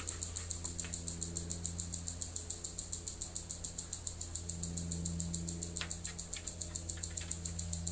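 A few faint clicks of thin winding wire being straightened by hand, over a steady low hum and a fast, even pulsing hiss in the background.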